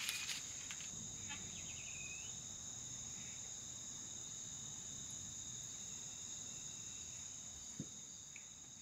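Crickets trilling steadily at a high pitch, fading out near the end.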